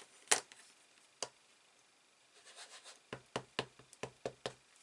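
Acrylic stamping block knocking against a hard surface: two single knocks, then a quick run of about seven light knocks near the end.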